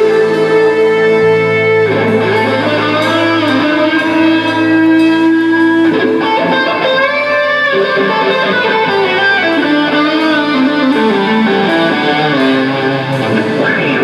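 Live blues band: an electric guitar plays a lead line of long held notes that step and bend in pitch, over bass guitar and drums.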